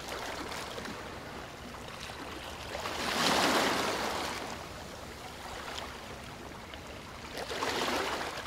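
Sea waves washing in: a rushing noise that swells about three seconds in and again near the end.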